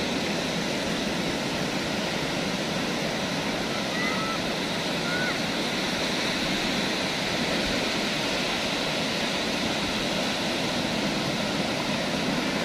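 Steady sea surf: waves breaking and washing up a sandy beach in an even, continuous rush. A few faint short chirps sound about four to five seconds in.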